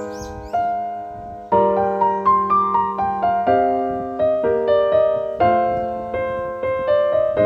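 Background piano music: a slow, gentle melody of single notes over held chords, each note fading after it is struck.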